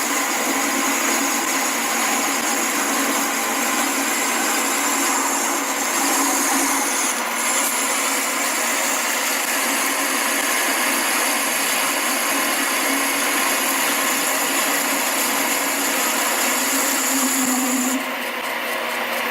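Manual centre lathe running and machining a metal workpiece: a steady mechanical noise with a high thin whine that drops away near the end.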